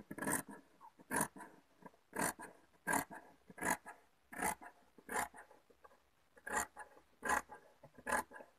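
Large tailor's shears cutting through soft fabric, a crisp snip of the blades about every three-quarters of a second, with one slightly longer pause a little past the middle.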